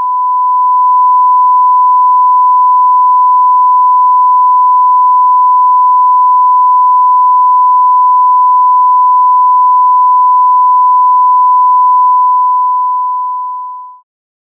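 A steady 1 kHz sine-wave test tone, the broadcast sign-off reference tone of "bars and tone". It swells up over the first second, holds loud and unchanging, and fades out just before the end.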